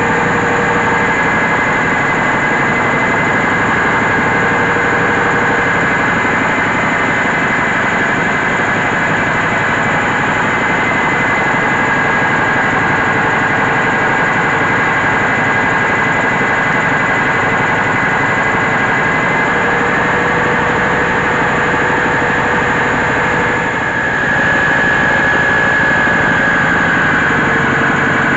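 Mobile rice mill driven by a diesel engine, running steadily while milling paddy: a dense mechanical din with a steady high whine over it. It dips briefly about 23 seconds in, then picks up slightly louder.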